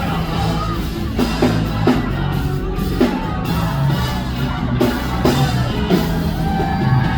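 Rock music with a drum kit keeping a steady beat and a singing voice over bass.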